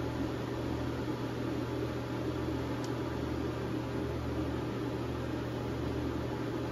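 Steady electrical hum and fan-like whir from an inverter powering an electric heater at about 1,580 watts, drawn from the battery at roughly 31 amps. A faint tick sounds about three seconds in.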